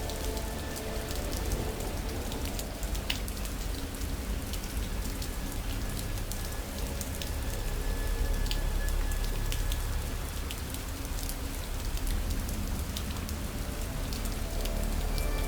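Steady rain, with individual drops ticking sharply over a low rumble. Faint sustained musical tones sit underneath.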